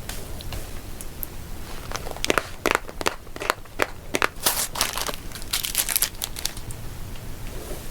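Close-miked crinkling and crunching of food, in a run of quick sharp crackles from about two to six seconds in.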